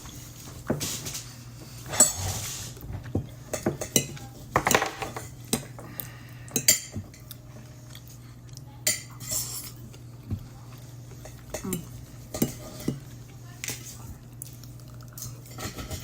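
Cutlery clinking and scraping against a plate or bowl during a meal, in irregular sharp clicks, over a steady low hum.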